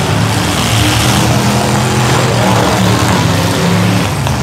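Several demolition derby cars' engines running together, loud and steady, with the engine notes wavering up and down.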